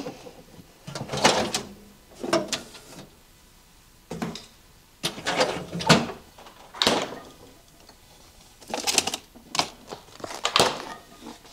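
A refrigerator being rummaged through: irregular knocks and clatters as containers are moved about and taken out, one every second or so, with a tub of yogurt set down on the counter.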